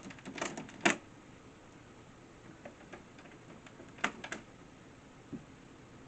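Light sharp clicks and taps of small hardware being handled against a door frame: a quick cluster in the first second, a few more about four seconds in, and one more near the end.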